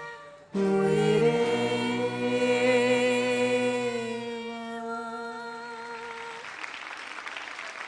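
A male and a female voice singing the closing held note of an unplugged duet together with vibrato, backed by acoustic string instruments. The note fades out, and audience applause follows near the end.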